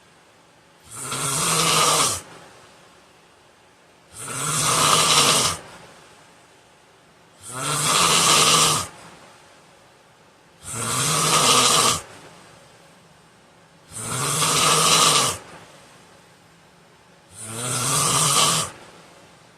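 A man snoring in his sleep: six loud snores about three seconds apart, each lasting a little over a second, swelling and then cutting off sharply, with quiet breathing between them.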